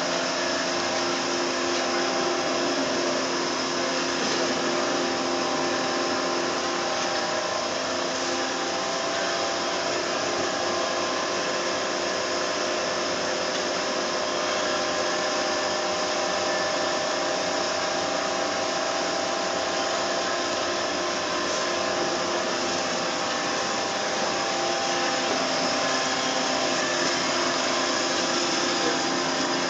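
Everising S-460HF metal-cutting band saw running: a steady machine whirr with several held tones over a broad hiss.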